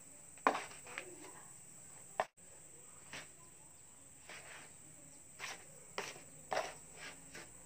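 Steel trowel scraping and scooping through dry cement-and-sand mix in a plastic basin, in short gritty strokes at irregular intervals, over a steady high-pitched background tone.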